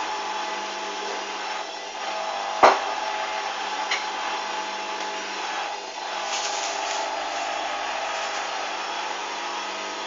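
Hoover front-loading washing machine running on its rinse: a steady whirring hum with a sharp knock about two and a half seconds in and a lighter click a second later.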